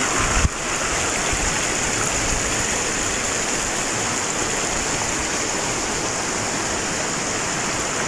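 Water of a shallow stream rushing steadily over rocks and small cascades, with a brief thump about half a second in.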